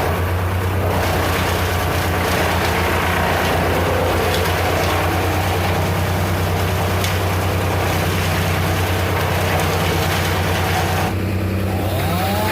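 An engine running steadily at idle with a fast, even pulse. Its pitch starts to rise right at the end.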